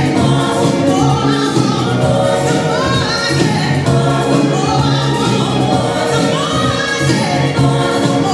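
Dance music with singing voices, the sung lines rising and falling over a steady bass line without a break.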